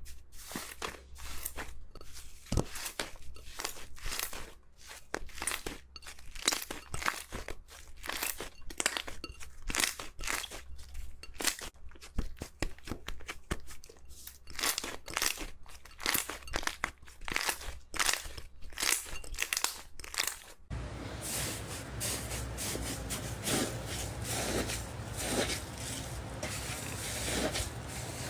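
Crunchy slime being squeezed and pressed, giving dense, rapid crackling and popping. About 21 seconds in it changes abruptly to a softer, hissier squishing with fewer pops.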